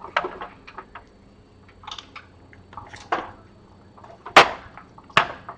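Metal parts of a shop-made machine skate knocking and clacking as its pivoting arm is worked into place: a series of sharp metal-on-metal knocks, the two loudest about four and five seconds in.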